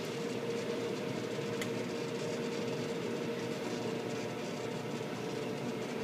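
Microwave oven running mid-cycle: a steady, even hum.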